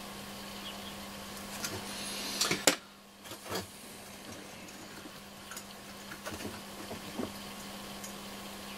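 Small clicks and taps of metal hand tools on an electronics module: a pick and soldering iron working a desoldered metal module can loose from a circuit board. A quick run of sharp clicks about two and a half seconds in is the loudest, then scattered light taps, over a steady low hum.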